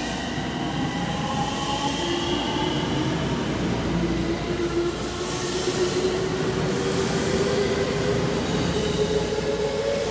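JR West 225 series electric train moving through the station, its traction motors whining in several steady tones over a low rumble of wheels on rails. The whine dips slightly at first, then climbs slowly in pitch.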